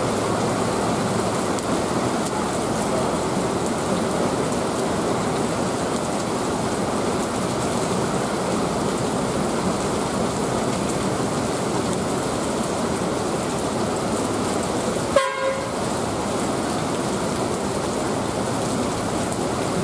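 Heavy rain pouring down steadily, mixed with the rumble of a coach's engine as the bus moves slowly past. There is a short toot about fifteen seconds in.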